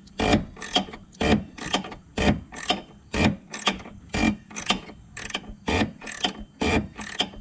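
Hand ratchet wrench clicking in a steady run, about three clicks a second, as it backs out the height-adjustment bolt on a C7 Corvette's rear transverse leaf spring to lower the car.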